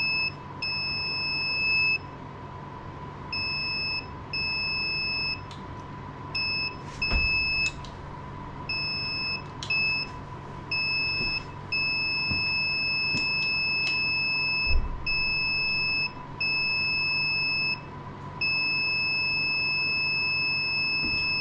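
Electronic buzzer sounding a high, steady beep that keeps switching on and off at irregular intervals, in beeps from a fraction of a second to about three seconds long. Under the beeps there is a faint steady electrical hum, and a couple of dull knocks fall around the middle.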